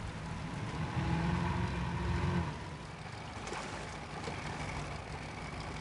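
Patrol boat's engine running, swelling louder for a second or so about a second in, then settling back to a steady hum.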